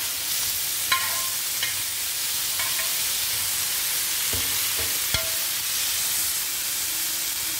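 Chopped onion, tomato and green chilli sizzling steadily in oil on a dosa tawa while being stirred, with a spatula knocking and scraping on the pan a few times.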